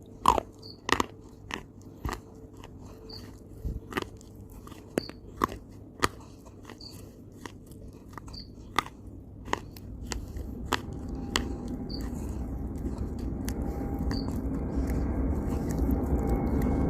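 A person biting and chewing hard, crunchy pieces, about fifteen sharp irregular crunches that are loudest near the start. A low rumble builds steadily through the second half.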